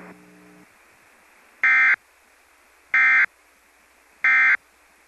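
Three short bursts of Emergency Alert System SAME digital data tones, about a second apart: the end-of-message (EOM) code that closes a required monthly test.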